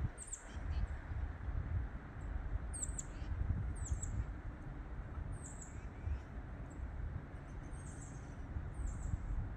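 Short, very high bird calls that fall in pitch, about eight of them at uneven gaps, over a steady low rumble.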